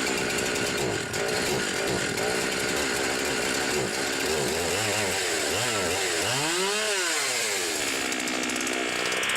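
Gas chainsaw on a chainsaw mill running steadily after refuelling; in the second half its engine pitch rises and falls several times as it is revved.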